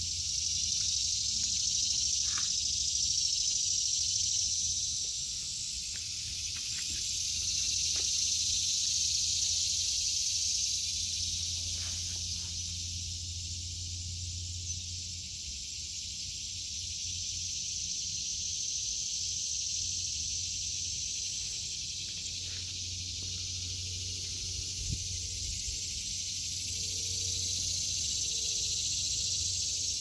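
Chorus of cicadas: a steady high buzz that swells and fades in slow waves every several seconds.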